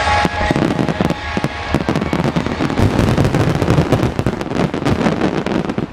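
Marugo fireworks barrage: many sharp reports and crackles in rapid succession, stopping abruptly at the end. Music fades out just after the start.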